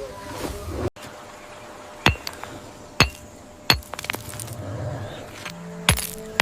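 Four sharp, ringing knocks or clinks, irregularly spaced, over a faint background.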